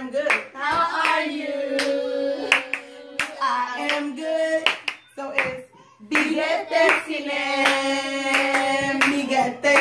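Hand clapping over voices singing a simple song in long held notes, with a short lull about halfway through.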